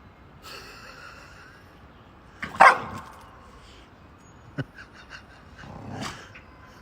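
A dog barking: one loud bark about two and a half seconds in and a softer one near the end, with a few small clicks in between.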